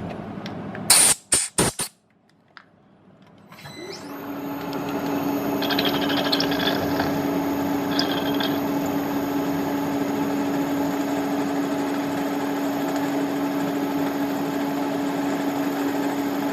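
A few sharp clicks about a second in, then a brief quiet, then the milling machine's spindle spins up with a rising whine and runs steadily, the end mill cutting into the broken stud.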